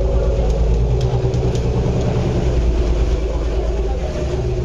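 Passenger ferry's engine running steadily under way, a low, even hum over a deep rumble.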